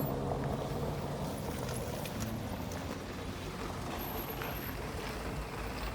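Steady noise of road traffic going past, with a few faint knocks.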